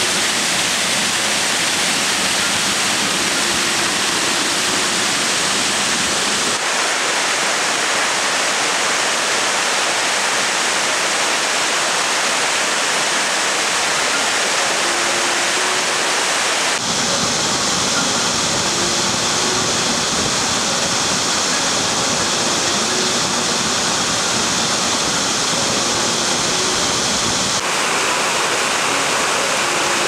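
Waterfall water rushing and splashing down stepped rock slabs, a loud, steady wash of noise. Its tone shifts suddenly three times along the way.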